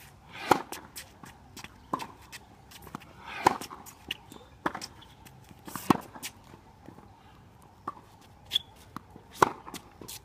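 Tennis ball struck by racket strings in a baseline rally: four loud, sharp hits from the near player a few seconds apart, with fainter hits and ball bounces from the far end of the hard court in between.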